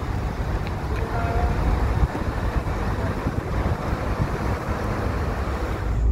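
Wind rumbling on a phone microphone over steady vehicle noise, with no clear single event.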